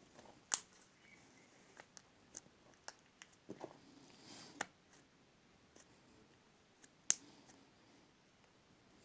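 Slime being worked by hand, giving scattered small sticky clicks and pops, with a sharper pop about half a second in and another about seven seconds in.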